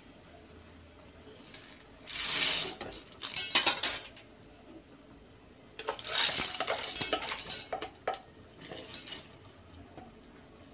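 Dry macaroni poured from a plastic bowl into an aluminium pot, a rattling rush of pasta with clicks against the pot in two spells. A few lighter clinks follow near the end.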